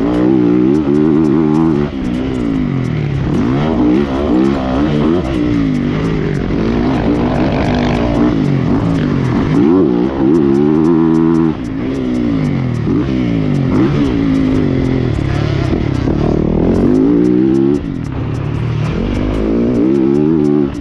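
Yamaha motocross bike engine at full race pace, heard close up from on the bike, revving up and falling back again and again as the rider accelerates, shifts and corners. The engine briefly backs off about two, twelve and eighteen seconds in.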